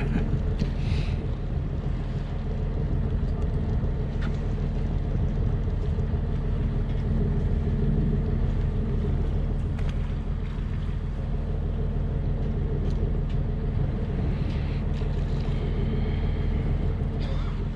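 Boat's engine running steadily, a low even drone, with a few faint clicks over it.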